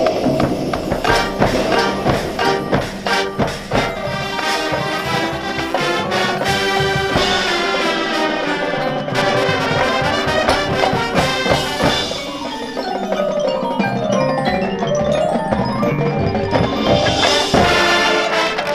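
High school marching band playing its field show: brass and drums together with a front ensemble of marimbas and other mallet percussion, and fast runs of notes rising and falling through the middle.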